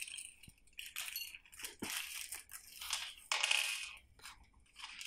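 A thin plastic bag holding small screws crinkling and rustling in the hands as it is worked open, in irregular bursts.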